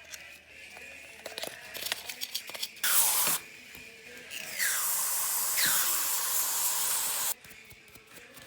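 Light clicks of parts being handled, then a short spray hiss and a longer spray of about three seconds that cuts off suddenly.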